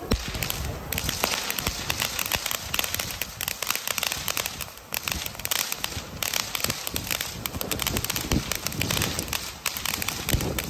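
Ground fireworks crackling and hissing in a dense, continuous spray of tiny pops. A spinning ground wheel and then a flower-pot fountain (anar) throw off crackling sparks.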